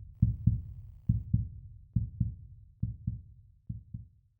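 Heartbeat sound effect: low paired thumps, lub-dub, about one beat a second, fading out over five beats.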